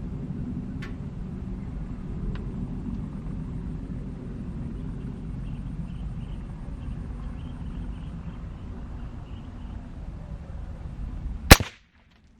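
A single loud, sharp shot from a .22LR CMMG rifle near the end, over a steady low rumble.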